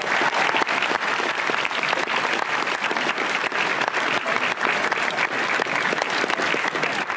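A large audience of students applauding, many hands clapping at once at an even level.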